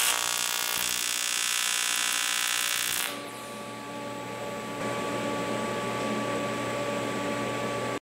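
AC TIG welding arc on aluminum buzzing for about three seconds while filler rod is melted into a tack, then stopping abruptly. A steady hiss and hum from the welder and its shielding gas follows until the sound cuts off just before the end.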